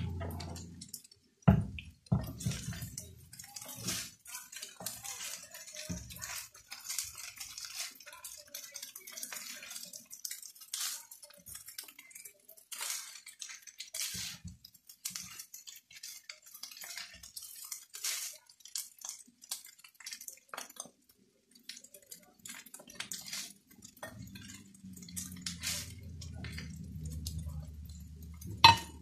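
Fried rice being stir-fried in a nonstick wok: spatulas scrape and tap against the pan in quick irregular clicks over a faint sizzle, with a sharp knock about a second and a half in and another near the end.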